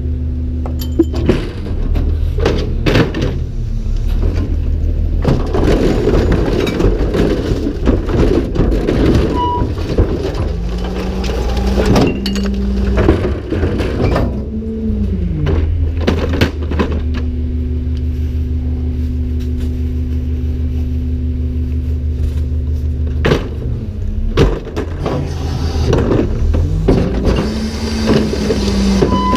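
Garbage truck's engine and hydraulic cart tippers running as curbside recycling and organics carts are lifted and dumped into the hopper, with the engine pitch rising and falling during the lifts. Carts and their contents clatter and bang against the hopper, with a dense rattle of material falling in a few seconds in.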